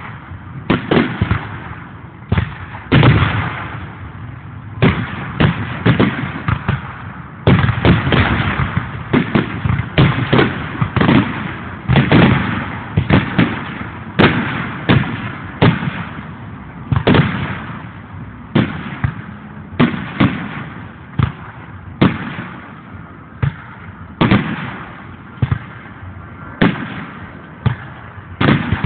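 Aerial firework shells bursting in quick succession, a sharp boom about every second or two, each trailing off in echo. Heard through a phone's microphone.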